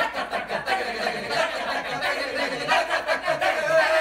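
A group of voices reciting konnakol, rapid spoken rhythmic syllables of South Indian vocal percussion, in a dense, fast unbroken stream.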